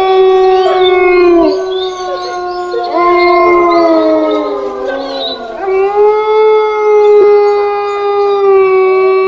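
Canine howls making up a horror ringtone: long, steady howls one after another, the first two dropping in pitch at the end, with fainter howls overlapping them.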